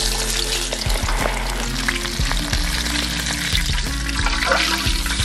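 Whole masala-coated chicken deep-frying in a wok of hot oil, the oil sizzling steadily, with background music underneath.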